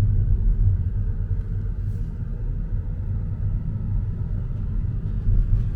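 Steady low rumble of a car driving on the road, engine and tyre noise.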